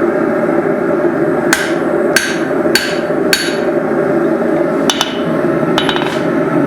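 Blacksmith's hand hammer driving a drift into the punched eye of a hot steel hammer head: four evenly spaced ringing blows starting about a second and a half in, then a few more closely spaced strikes near the end. A steady rushing noise runs underneath.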